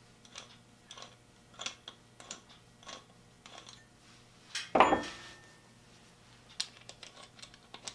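Small metal clicks and clinks from a freshly cleaned and reassembled Skinner Junior 5-inch three-jaw scroll chuck being worked with its T-handle chuck key, with one louder metal clank that rings briefly about five seconds in.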